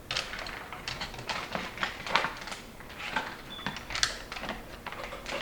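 Small screws being fitted by hand into PC parts, with irregular light clicks and taps of metal.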